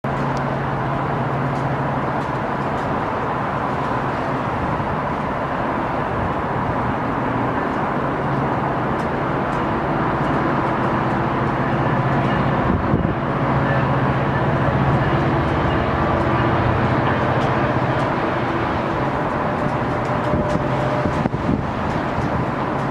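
GO Transit MP40PH-3C diesel locomotive, with its 16-cylinder EMD prime mover, running steadily as it pulls away from the station with bilevel coaches. The low engine drone is strongest in the middle as the locomotive passes, and a few sharp wheel clicks come near the end as the coaches roll by.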